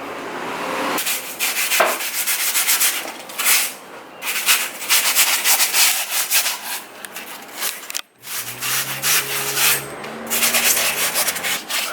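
Abrasive rubbed back and forth over a car's steel wheel hub in quick repeated strokes, sanding off rust so the new brake rotor will sit flat; the strokes pause briefly about eight seconds in.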